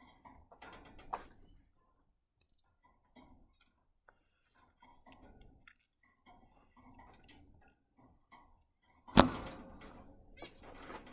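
Faint scattered clicks and taps in a zebra finch's wire cage, then one sharp loud knock about nine seconds in.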